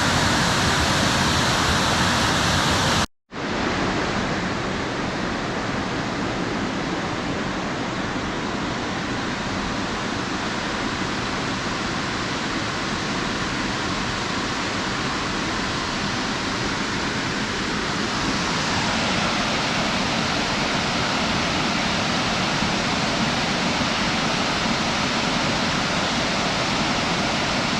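Waterfall: a steady rush of falling water, broken by a short cut about three seconds in.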